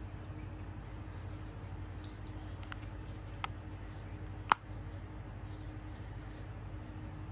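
Plastic stacked makeup compact clicking as it is handled and its swivel tiers closed: a few light clicks a little after two seconds in, then one sharp, louder click about four and a half seconds in, over a steady low hum.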